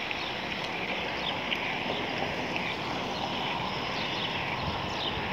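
Steady wind rush and tyre rolling noise from a bicycle ridden along a paved street, with faint high ticks scattered through it.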